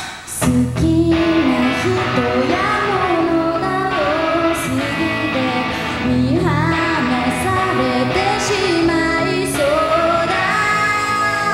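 Live rock band: a woman singing over electric guitar, bass and drums, the music coming in about half a second in.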